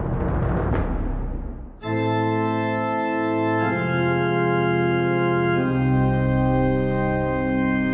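Sustained organ chords entering about two seconds in and changing chord twice. Before them, a rumbling noise fades away.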